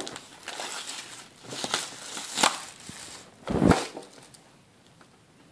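Clear plastic shrink wrap being torn and peeled off a cardboard box, crinkling in uneven bursts for about three seconds. About three and a half seconds in there is a short, louder thump as the box is handled, then it goes quiet.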